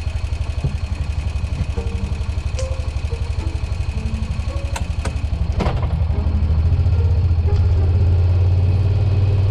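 Side-by-side UTV engine idling with a low, pulsing beat and a few sharp clicks, then running louder and steadier from about six seconds in.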